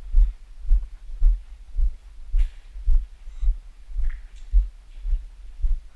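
Footsteps of a person walking at a steady pace, heard mainly as low thuds about twice a second, with faint light scuffs between them.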